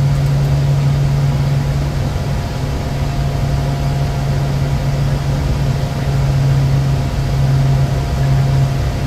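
Steady in-flight noise inside a Bombardier Challenger 350 jet: a constant low hum with a faint higher steady tone over even air and engine noise.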